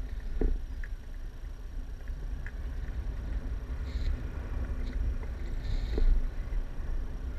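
Wind rushing over the camera's microphone in flight under a tandem paraglider: a steady low rumble, with a few faint clicks and short high chirps.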